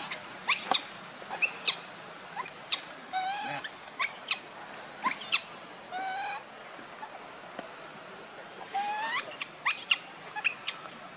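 Forest ambience: a steady high-pitched insect drone, with many short chirping calls and a few brief rising calls scattered throughout.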